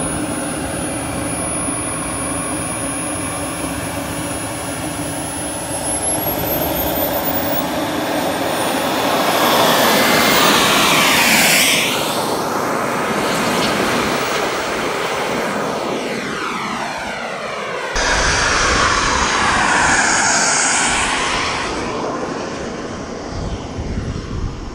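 Small turbine engine of a T-1 RC model jet whining high and steady, then spooling up with a rising whine about six seconds in. The jet then passes close by with its pitch falling, and makes a second pass, with falling pitch, after a sudden cut near two-thirds of the way through.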